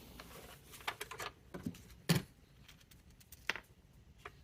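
Light clicks and taps of plastic parts being handled and fitted together on a Dyson vacuum cleaner head, with the sharpest click about two seconds in and another a second and a half later.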